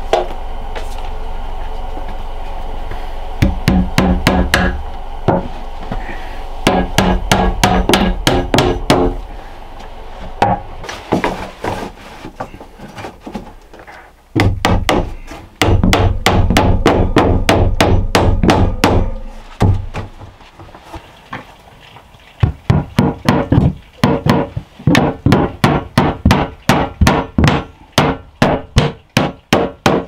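Hammer driving nails into wooden boards, in runs of quick blows with short pauses between. Near the end the blows come evenly, about three a second.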